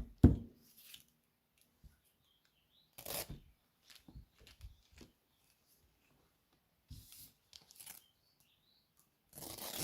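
Hook-and-loop (Velcro) strips being pressed onto and pulled off a looped step mat, making several short ripping sounds a few seconds apart. There is a knock at the start and soft handling noise between the rips.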